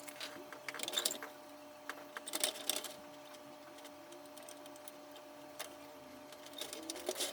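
Small clicks and rustles of hands handling plastic toy parts, coming in short clusters, over a faint steady hum.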